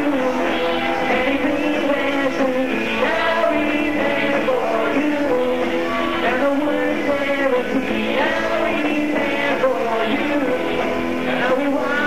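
Live rock band playing a pop-rock song at a steady, loud level.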